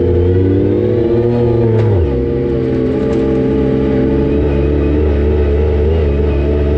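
A 2017 Yamaha YXZ1000R SS side-by-side's three-cylinder engine running under way. Its pitch drops sharply about two seconds in, then holds steady.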